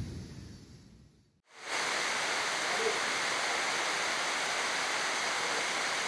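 A low rumble of thunder dies away in the first second. After a brief silence, a steady rushing hiss of pouring jungle rain takes over, with a rocky river running below.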